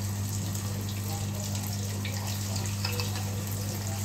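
Needlefish frying in hot oil in a pan: a steady sizzle with many small scattered crackles and pops, over a steady low hum.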